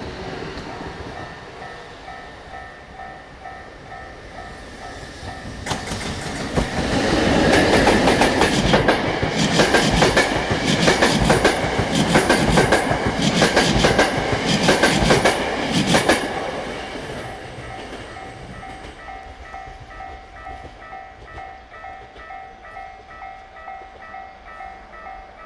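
Level crossing warning bell ringing in a steady repeating pattern, while an EF65 electric locomotive hauling unpowered Tokyo Metro 2000 series cars passes from about 6 to 16 seconds, its wheels clacking rhythmically over the rail joints. The bell keeps ringing after the train has passed.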